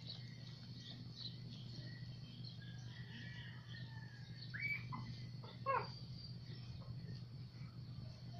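Newborn Siberian husky puppies squeaking faintly while they nurse, with two louder squeals about halfway through that fall steeply in pitch. A steady low hum runs underneath.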